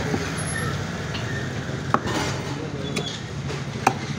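Meat cleaver chopping bone-in chicken pieces on a wooden block: a few sharp chops, the first about two seconds in and the rest about a second apart, over a steady low background hum.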